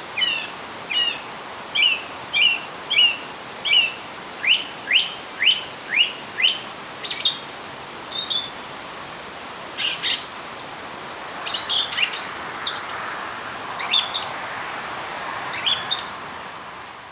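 Wild songbirds singing in spring: one bird repeats a short note about twice a second for the first six seconds, then higher, quicker chirps and trills from other birds follow. A faint steady rush sits underneath, a little louder in the second half.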